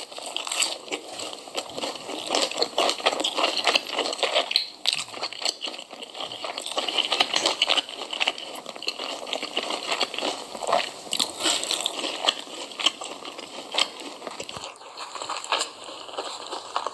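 Crisp food being bitten and chewed close to the microphone, a dense run of irregular crunches and crackles.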